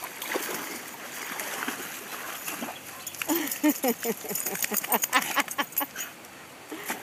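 Water splashing as a Labrador and a Staffordshire bull terrier wade out of a shallow river, followed from about three seconds in by a run of sharp clicks and short rising-and-falling vocal sounds.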